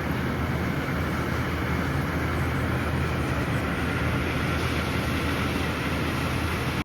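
Steady heavy rainfall, an even rushing hiss with a low rumble underneath.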